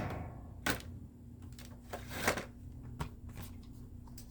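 Handling noise of packaged diecast model cars being picked up and shown: a few light clicks and rustles over a faint steady hum.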